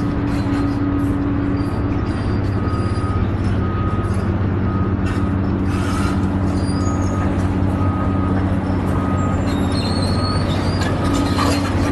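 Caterpillar tracked excavator's diesel engine running steadily while its travel alarm beeps a little over once a second, with occasional clanks from the steel tracks on the rock.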